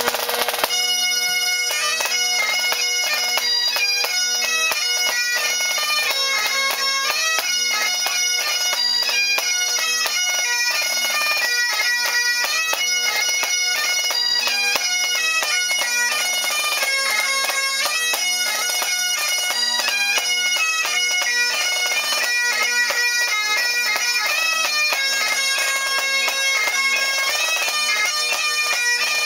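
Several Great Highland bagpipes playing a tune together, the chanter melody stepping from note to note over steady drones, with a snare drum keeping time in quick strokes.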